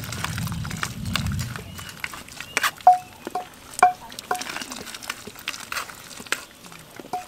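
A metal ladle working fish pieces in a plastic strainer held over a large aluminium pot of boiling fish broth: scraping and dripping, with several sharp ringing clinks of the ladle against metal, four of them close together in the middle. A low rumble at the start.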